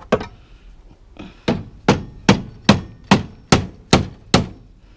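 Hammer blows: a single strike, then a steady run of about eight blows, roughly two and a half a second.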